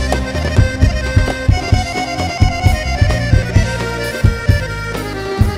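Live Arabic wedding dance music, instrumental: a held melody line over a steady beat of drum strikes, about three to four a second.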